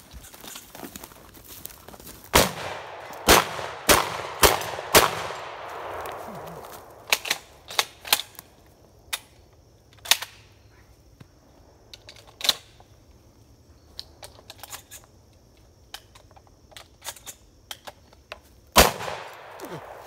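Shotgun firing in a 3-gun stage run. Five loud shots come in quick succession a couple of seconds in, each trailing an echo, followed by scattered quieter cracks and clicks, then one more loud shot near the end.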